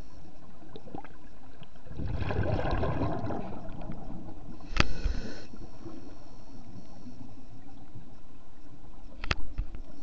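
Scuba diver's regulator breathing heard underwater: an exhalation of bubbles rumbling for about two seconds, followed by two sharp clicks about four and a half seconds apart.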